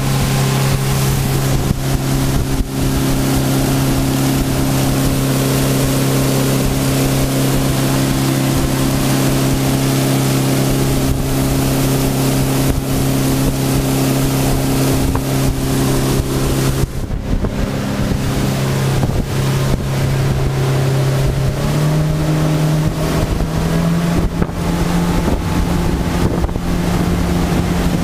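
Outboard motor of a pontoon boat running at cruising speed: a steady drone over the rush of wind and wake water. About 17 seconds in the drone falls away, and a few seconds later it settles again at a slightly higher pitch.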